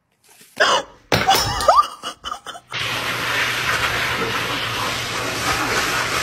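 A few sudden loud knocks and clatters with a short rising squeal, then, about three seconds in, a pet grooming dryer starts blowing through its hose: a steady loud rush of air over a low hum.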